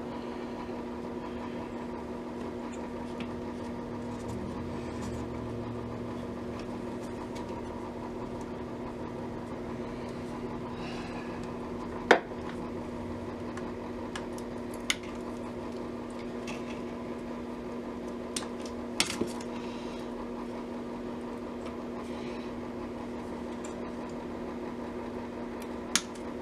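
Occasional sharp metallic clicks and taps of hand tools working on a Hallicrafters S-120 radio chassis, about six in all, the loudest about halfway through. A steady electrical hum runs underneath.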